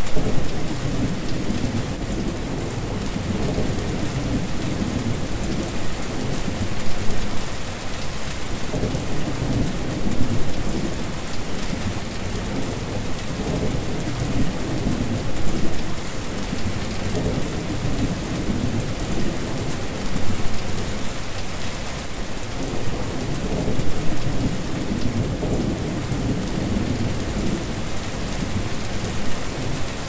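Steady rain splashing onto standing water: a dense, even hiss of drops with a fuller low end that swells slightly every few seconds.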